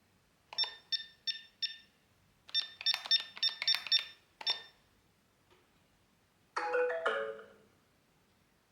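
Electronic beeps from a eufy Security home alarm system: four short high beeps, then a quick run of about nine more, a faint click, and a short two-note chime near the end.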